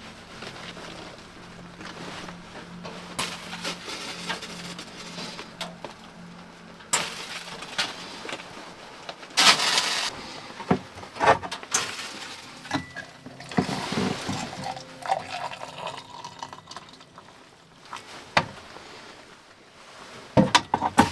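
Tea being made by hand: water poured, with a cup and pot clinking and knocking now and then. A short run of pouring comes about nine to ten seconds in.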